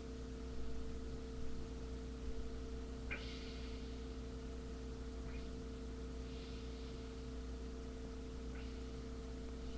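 Steady low electrical hum under a faint hiss, broken by a few faint brief clicks or rustles.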